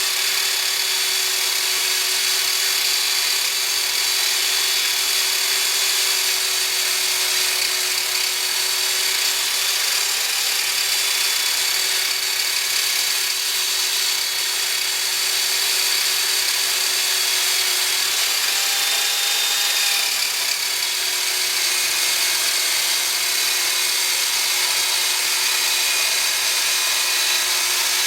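An electric power tool motor running continuously with a steady high whine and hiss, its pitch sagging slightly a couple of times as if under load.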